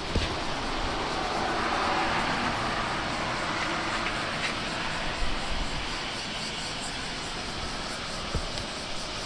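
Typhoon wind and heavy surf making a steady rushing noise that swells about a second in, with wind buffeting the microphone.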